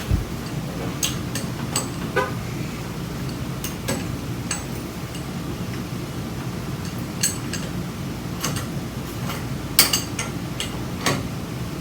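Scattered short metal clicks and taps from tightening the set screws on a garage door torsion spring's winding cone after adjusting its tension, over a steady low hum.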